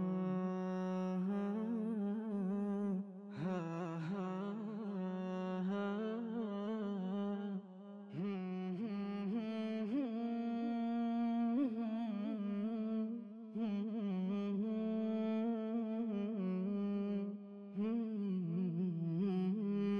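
Melodic Quran recitation by a single voice, with long drawn-out notes and ornamented glides, in about five phrases separated by brief pauses.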